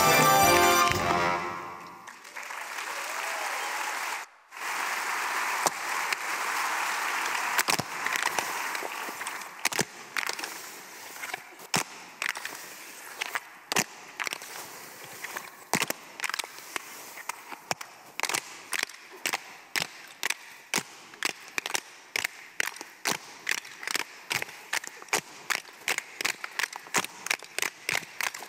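Orchestra music ends about a second and a half in and an audience applauds. Then a run of sharp clicks takes over, thin at first, growing regular and speeding up to about three a second near the end.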